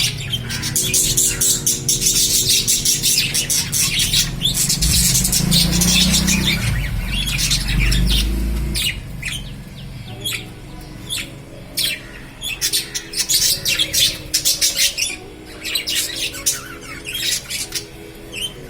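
Lovebirds chattering with rapid, sharp chirps and squawks, thick and continuous for about the first half, then in shorter separate bursts. Soft background music with sustained tones runs underneath.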